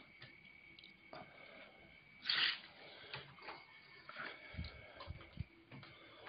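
Faint handling noise from a handheld phone being moved, with scattered rustles, a short breathy hiss like a sniff about two seconds in, and a few soft low bumps a little past the middle, over a faint steady high whine.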